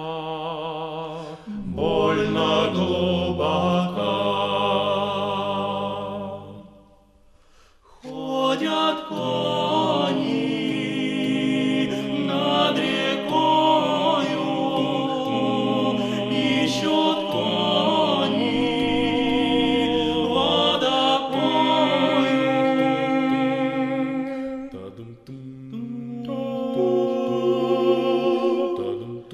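Background music: a choir singing slow held chords, with a brief pause about seven seconds in.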